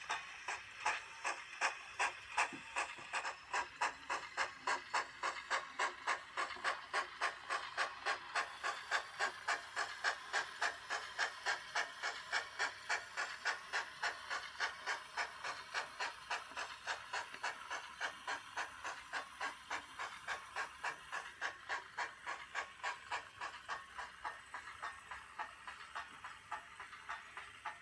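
Sound-fitted 7mm-scale model steam locomotive chuffing at a steady beat of about three chuffs a second, fading out near the end.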